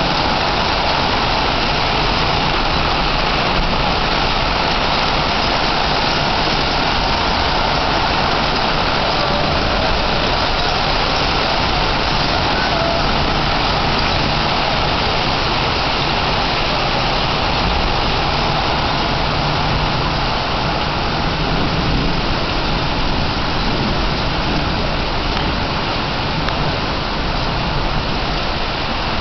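Torrential rain pouring down steadily on a lawn and paving, a loud even hiss.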